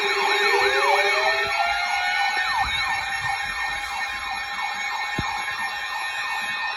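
Several sirens sounding together: a fast repeating yelp, a few times a second, layered over slower rising wails and steady tones.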